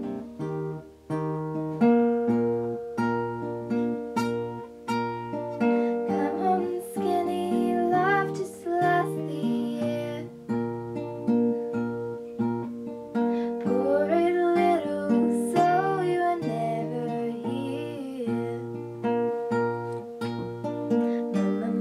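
Nylon-string classical guitar being played in steady picked chords and notes, with a girl's voice singing along from about six seconds in and again in the second half.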